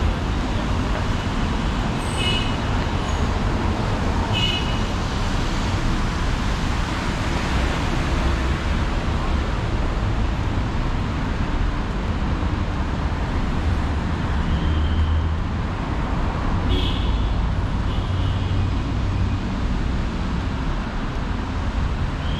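Steady city road traffic: a continuous rumble of passing vehicles, with a few short high squeaks over it.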